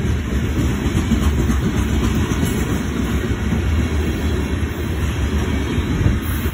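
Covered hopper cars of a grain train rolling past at speed: a steady low rumble of steel wheels on rail.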